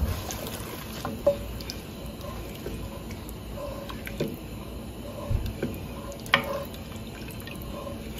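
Red wine being stirred with a wooden spoon in an enamelled cast-iron Dutch oven to deglaze the pan: the liquid sloshes around the vegetables, with a few light knocks of the spoon against the pot, the loudest about six seconds in.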